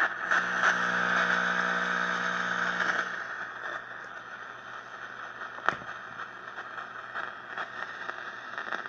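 Panasonic RC-7589 clock radio's speaker giving static between stations while it is being tuned: a steady hiss with a held hum-like tone for about three seconds, then quieter hiss, with one sharp crackle about halfway through.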